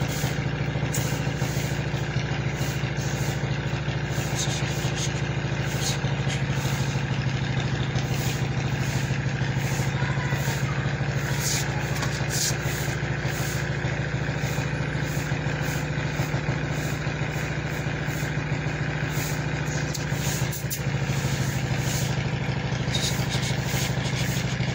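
An engine running steadily at idle, a constant low hum broken by scattered light clicks, with a brief dip about twenty seconds in.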